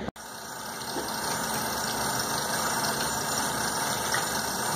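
Bathroom tap running into a sink while hands are washed under it: a steady rush of water that stops near the end.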